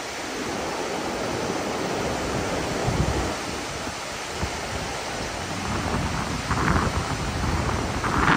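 Wind buffeting the microphone over a steady rush of sea, gusting louder near the end.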